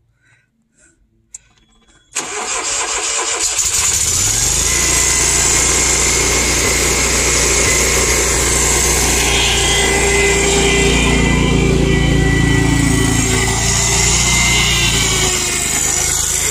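Fire-damaged riding lawn mower's engine starting about two seconds in, its speed rising for a moment before it settles into a steady run.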